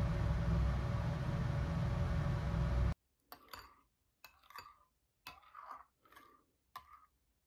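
A steady machine hum with a low rumble cuts off abruptly about three seconds in. It gives way to a metal spoon scraping and stirring through thick soup in a ceramic bowl, about five short strokes.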